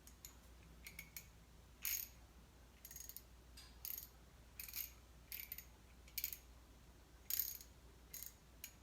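Ratchet wrench set to tighten, clicking in short runs about once a second as it is swung back and forth.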